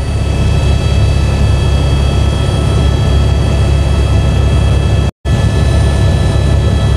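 Helicopter cabin noise: engine and rotor running steadily, a constant low rumble with a steady high whine over it. The sound cuts out for a split second about five seconds in.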